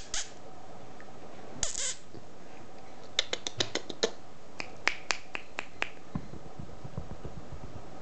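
Small puppy giving a quick run of about a dozen short, high yips over a few seconds, followed by soft low thumps.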